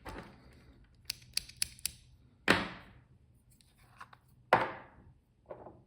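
Handling noise on a fly-tying bench: four quick light clicks, then two sharp knocks about two seconds apart and a softer knock near the end, as tools and the head-varnish bottle are picked up and set down.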